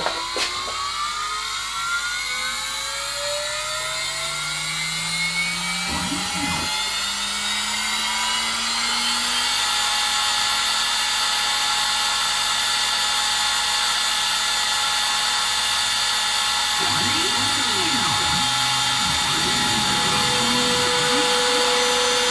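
Homebrew CNC router's spindle motor spinning up with a rising whine that levels off into a steady high whine about nine seconds in. From about seventeen seconds in, the stepper motors driving the axes add warbling tones that rise and fall as the cutter moves through the oak.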